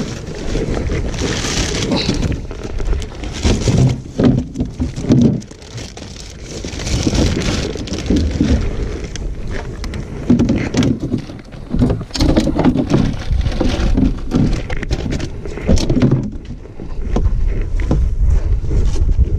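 Wind buffeting the microphone, heaviest near the end, with knocks, clicks and rustles of bottles, a cooler and bags being handled in a car's cargo area, and now and then a voice.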